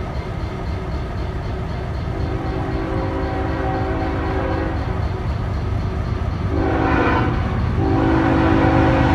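Diesel locomotive engines rumbling close by, with a multi-note train horn sounding from about two seconds in; the horn grows louder, with its strongest blast around seven seconds, as a train approaches.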